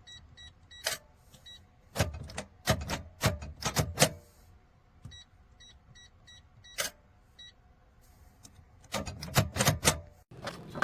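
Electronic safe's keypad beeping with short beeps as buttons are pressed, followed by loud metallic clunks and clicks of the steel safe's lock and door. This happens twice: beeps, then a cluster of clunks.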